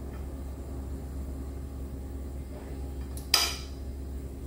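A single short clink of a kitchen utensil against a plate about three seconds in, over a steady low hum.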